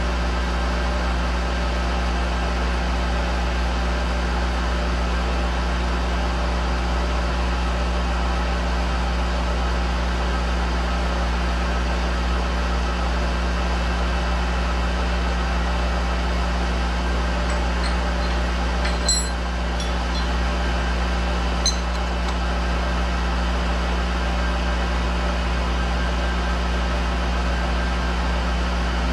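A machine-tool spindle and its drive motor running steadily with an even hum. Two faint clicks come about two-thirds of the way through.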